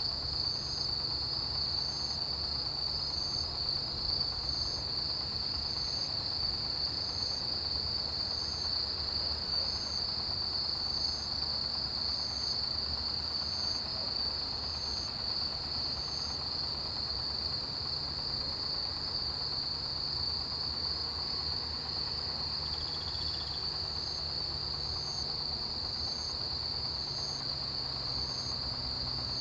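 Autumn chorus of crickets and other grass insects: a steady high trill, with another insect chirping about once a second over it; the chirping stops about halfway through and starts again near the end.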